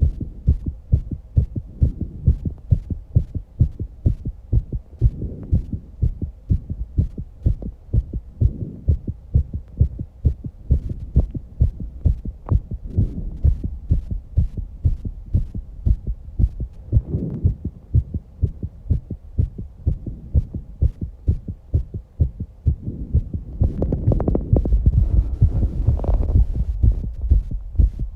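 Fast human heartbeat, raised after exercise, picked up close as regular low thuds at about two beats a second. Breathing swells in every few seconds and is heaviest about 24 to 27 seconds in.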